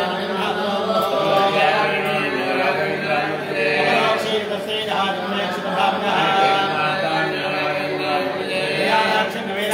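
Several male voices chanting mantras together in a steady, unbroken chant, part of the ārati worship.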